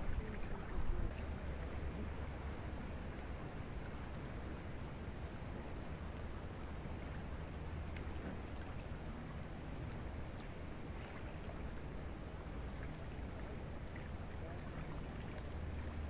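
Steady outdoor background noise: a low rumble with a hiss over it and a faint, steady high tone.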